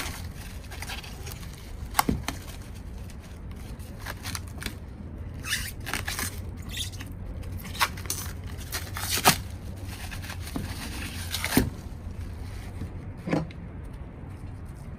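Plastic packaging crinkling, scraping and tearing as it is opened by hand, with irregular sharp clicks from the hard plastic and the parts inside.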